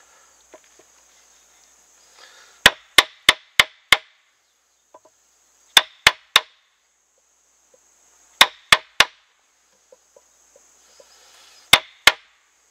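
Wooden baton striking the spine of a fixed-blade knife, driving the blade into a green stick to cut a V-notch. The sharp knocks come in four quick groups: five strikes, then three, three and two.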